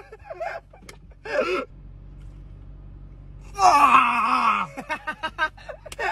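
Young men's voices without words: a short cry about a second in, then a loud, drawn-out groan falling in pitch near the middle, followed by short rapid bursts of laughter.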